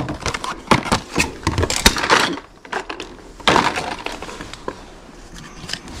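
Hard plastic clicks, knocks and scraping of PVC pipe and fittings being handled and fitted together, with a denser rattling scrape about two seconds in and again near the middle.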